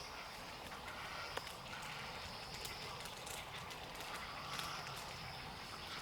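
Quiet outdoor ambience: a steady high-pitched drone that breaks off now and then, with scattered light clicks and taps.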